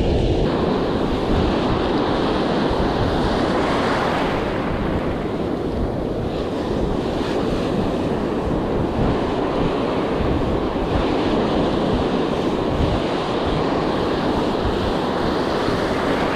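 Ocean surf washing in over the sand, with wind buffeting the microphone in gusts.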